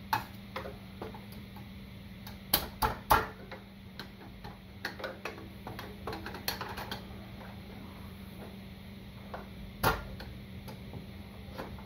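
Ratchet wrench clicking in short irregular runs, with sharper metallic clicks among them, as a T30 Torx bolt on the motorcycle's exhaust manifold is backed out; the loudest clicks cluster about two and a half to three seconds in and again near the end. A steady low hum runs underneath.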